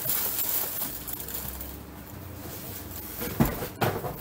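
Clear plastic packaging rustling and crinkling as it is handled, with two sharper crackles near the end.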